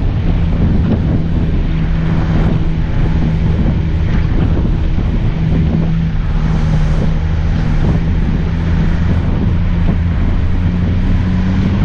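Off-road 4x4's engine running steadily at low speed, an even low hum under rough wind and tyre noise on the microphone; the engine pitch rises slightly near the end.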